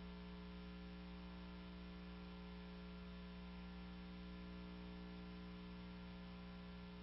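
Faint, steady electrical hum: a low tone with a stack of higher overtones, unchanging, with nothing else heard.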